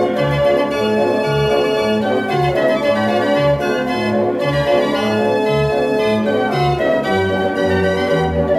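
Dutch street organ (draaiorgel) playing a tune, its bass notes and accompaniment chords alternating in a steady beat about twice a second under a sustained melody.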